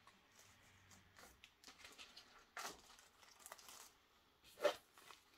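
Faint rustling and crinkling of a thin translucent packing sheet being handled and lifted out of a cardboard box, in several short bursts, the loudest near the end.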